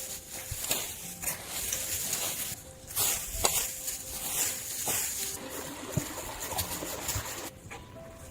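Intermittent rustling and crunching, in uneven spells, with scattered sharp clicks and knocks.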